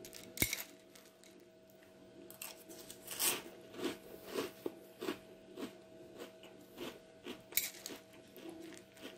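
A single sharp clink about half a second in, then a person chewing a mouthful of milk-soaked cereal, with soft crunches coming about every half second.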